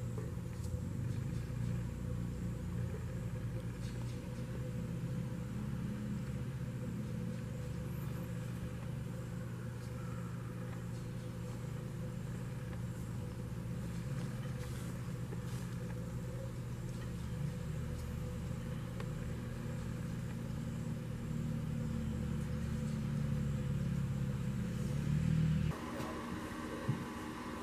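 A steady, low engine hum that cuts off abruptly near the end, leaving fainter background sound.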